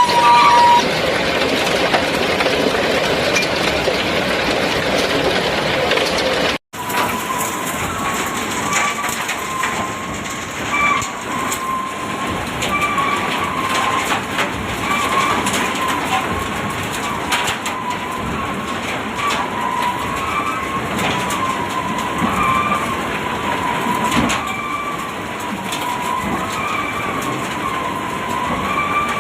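Bucket elevator running with a steady rattling clatter of small clicks and a wavering high-pitched squeal over it: the abnormal running noise of the elevator that needs fixing.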